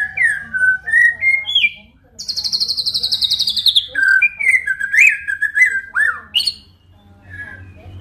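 White-rumped shama singing: a run of clear whistled notes sliding up and down, then a rapid high trill lasting about a second and a half and falling slowly in pitch, then more varied whistled notes that thin out and grow quieter near the end.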